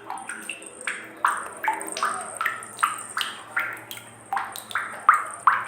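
Water dripping or plopping in a quick, irregular series, about two to three drops a second, each a short pitched plink that bends in pitch.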